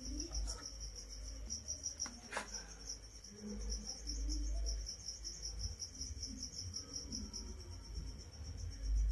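A cricket chirping in a steady, fast-pulsing high trill that fades out near the end, with two faint clicks in the first few seconds and a low handling rumble underneath.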